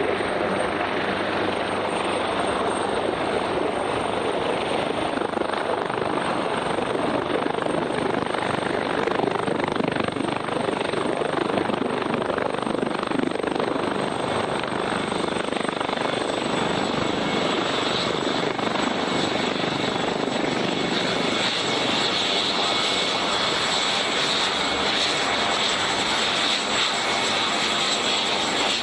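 Boeing MH-139A Grey Wolf twin-turboshaft helicopter running: a steady rush of rotor and engine noise with a thin high turbine whine. A brighter high whine grows stronger past the halfway point.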